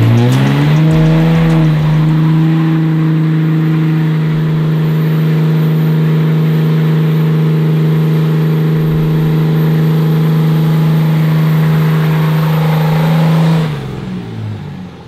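Pickup truck's engine revved up and held at steady high revs in second gear for a burnout, then let off near the end, the revs falling away.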